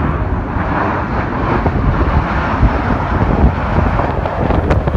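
Jet engines of a Boeing 737 airliner on final approach, passing low overhead as a steady rushing noise. Wind buffets the microphone with a low rumble underneath.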